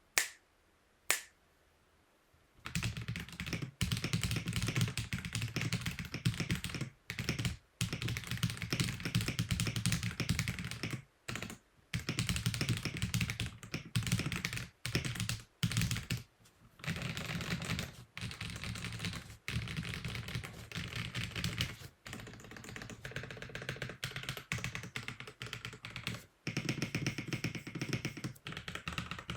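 Ikki68 R2 mechanical keyboard being typed on: two single key clicks at the start, then fast continuous runs of keystrokes broken by short pauses. Toward the end the strokes are on the modifier keys.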